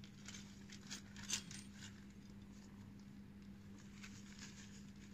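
Faint crackling and rustling of a dry tuber clump's roots handled in gloved hands, with a few sharper clicks in the first two seconds and again near the end, over a low steady hum.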